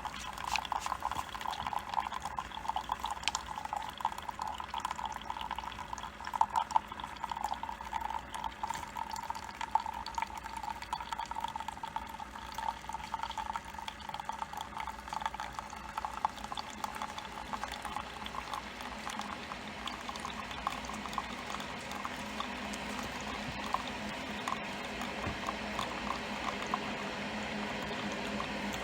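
Coffee brewing: hot liquid bubbling and trickling with many small crackles, settling into a steadier, more even sound in the second half.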